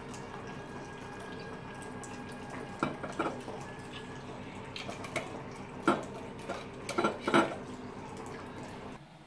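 Bourbon poured from a glass bottle into a plastic cup, then a few sharp knocks as the bottle and cup are set down and handled on a stone countertop, over a steady background hum.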